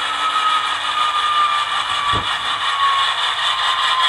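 Sound decoder of an HO-scale GE C44-9W model locomotive playing its diesel engine sound through the model's small speaker, with a thin whine that slowly falls in pitch and a brief low thump about two seconds in.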